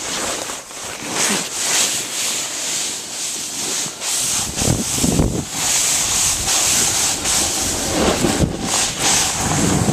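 Snowboard sliding and scraping over snow, with wind buffeting the camera's microphone; the scraping gets heavier and more uneven about halfway through.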